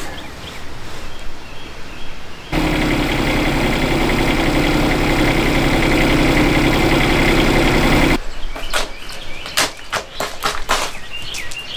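A Bobcat mini excavator's diesel engine runs steadily for about five seconds, starting and stopping abruptly. After it, a steel shovel scrapes and strikes gravelly soil in a series of sharp clicks.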